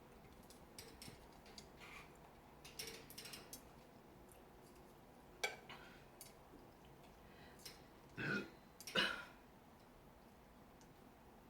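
A woman burping twice in quick succession, the second burp slightly louder, after a few scattered soft clicks and a sharper click.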